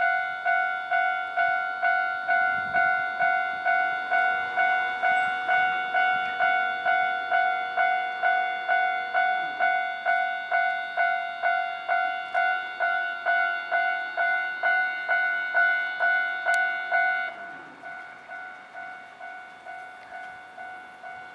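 Japanese railway level-crossing warning bell ringing at a steady rate of about two strikes a second. About 17 seconds in it drops sharply in volume and keeps ringing.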